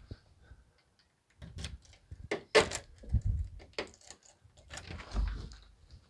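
A key is turned in a Yale electronic deadbolt whose bolt is jammed part-way out: a run of irregular metal clicks, scrapes and grinding knocks, with two dull knocks, as the bolt is forced back against the lock's motor gears. It is the sound of the gears being stripped because a too-shallow strike hole kept the bolt from fully extending; it is called awful and said to be destroying the lock.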